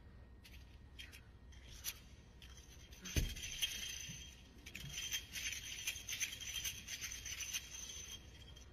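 A wushu spear routine: one sharp thump about three seconds in, then several seconds of light metallic clinking and rattling from the spear as it is whipped and shaken.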